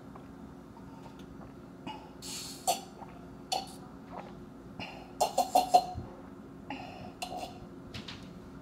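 A person gulping down juice from a glass in a series of separate swallows, most tightly bunched about five to six seconds in.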